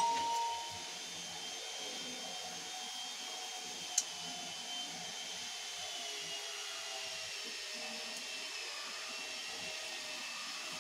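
A steady mechanical drone with a faint high whine, like a small motor running in the background. A short beep sounds at the very start and a single sharp click comes about four seconds in.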